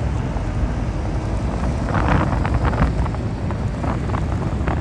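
Wind buffeting the microphone over the low rumble of a heavy diesel truck driving off a car ferry's ramp, with a brief louder patch of noise about two seconds in.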